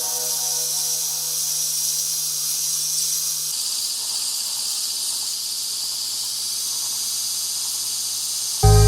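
Background electronic music in a quiet passage: a steady high hiss over a low held drone, both shifting down about three and a half seconds in. Loud music with a beat comes back in near the end.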